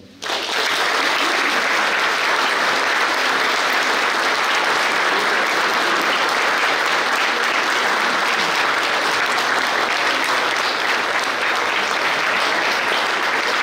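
An audience of children and adults applauding. The clapping breaks out all at once and keeps up at a steady level.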